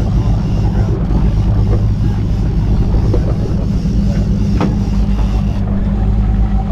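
Boat engine running steadily at a constant pitch, under wind and water noise, with one short knock about four and a half seconds in.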